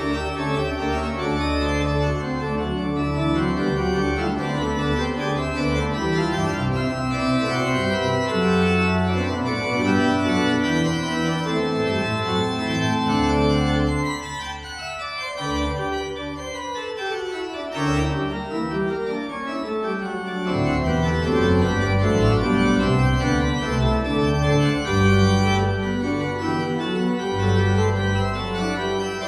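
Four-manual church organ playing full sustained chords over deep bass notes. About halfway through, a run of notes descends and the sound briefly thins, then the full chords return.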